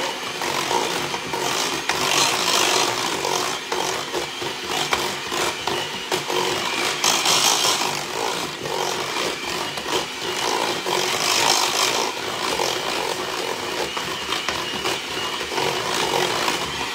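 Handheld electric mixer running with its beaters in a stainless steel bowl, blending dry ingredients (almond flour and spices) into thick pumpkin bread batter. It runs without a break, louder in a few spells as the beaters work around the bowl.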